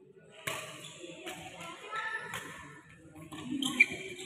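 Badminton shuttlecock struck back and forth by rackets in a rally: several sharp hits roughly a second apart, with faint voices in the background and a short squeak near the end.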